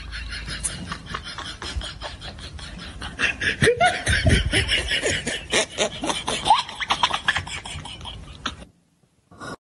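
People laughing hard in rapid repeated bursts, loudest in the middle, cutting off abruptly near the end.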